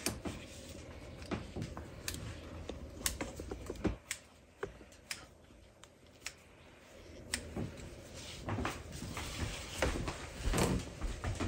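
Kitchen scissors snipping through the puff-pastry overhang of a pie, a series of irregular clicks, with hands handling the dough.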